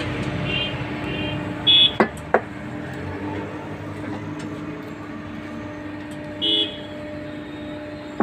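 Vehicle horns honking: a few short toots, then a louder one, and another about six and a half seconds in. Two sharp knocks come about two seconds in, over a steady background hum.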